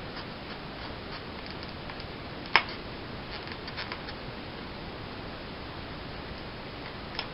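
Hand work on a blade set in a plastic tube while it is being snapped off flush with the tube. One sharp snap comes about two and a half seconds in, a few faint clicks follow just after, and a lighter snap comes near the end, over a steady hiss.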